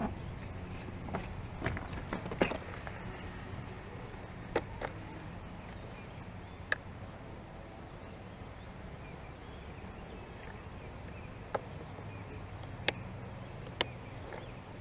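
Scattered sharp clicks and taps of small fishing tackle being handled, including a clear plastic tackle box, over a steady low background noise.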